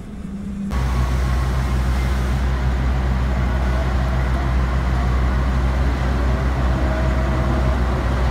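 Steady low drone of a diesel train engine running, over the even hiss of rain. It cuts in abruptly just under a second in.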